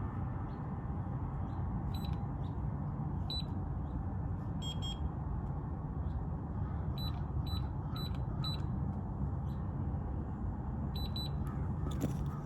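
Electronic keypad door lock beeping while a key card is being programmed: short high beeps at intervals, a quick run of several beeps about five seconds in, and a fast triple beep near the end, over steady background noise.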